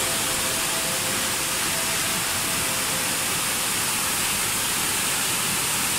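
Steady rushing of a tall waterfall plunging down a cliff face: an even, unbroken hiss.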